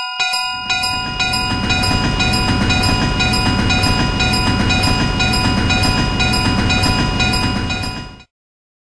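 Railroad crossing warning bell ringing about twice a second as a train rumbles past the crossing. The rumble builds about a second in, and bell and train cut off together near the end.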